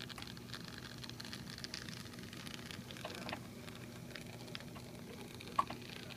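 N scale model train cars rolling along the track: a steady crackle of many tiny clicks from wheels on the rails, over a steady low electrical hum. One sharper click comes about five and a half seconds in.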